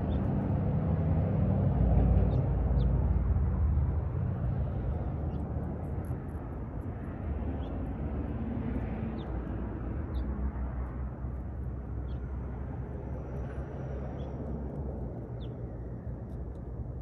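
Outdoor background rumble, like distant engine noise, loudest about two seconds in and easing off after, with a few faint short high chirps scattered through.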